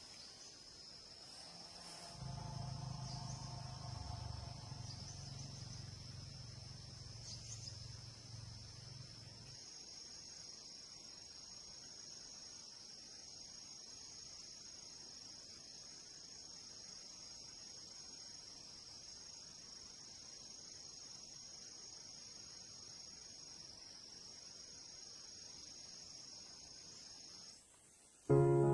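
Insects trilling in one steady high-pitched tone that cuts off suddenly near the end, with a faint low hum under it for the first several seconds.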